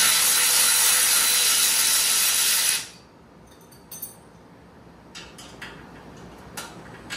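Ratchet wrench spun fast, a loud, rapid continuous clicking as a nylon-insert lock nut is run down on a bolt. It stops sharply about three seconds in, and only a few light clicks and taps follow.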